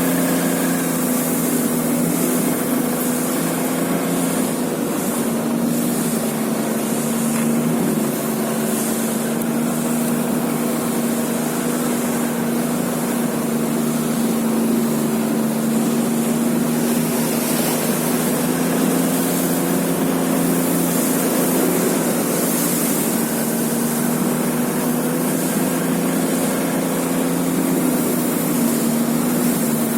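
A vehicle engine running steadily at cruising speed, holding an even pitch, with a rushing noise over it.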